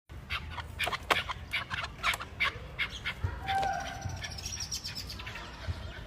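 Chukar partridge calling: a rapid run of sharp clucking notes for about three seconds, followed by higher, drawn-out call notes.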